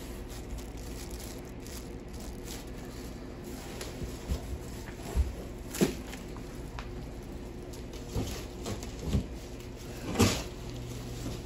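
Rustling and scattered knocks as a cassette deck in a plastic bag is lifted out of a cardboard box packed with packing peanuts, the loudest knocks about six and ten seconds in, over a steady low hum.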